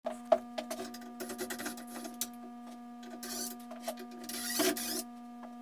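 Scattered knocks and clicks and a couple of short scraping passes from hand work on a wooden chair, the sharpest knock just after the start, over a steady low electrical hum.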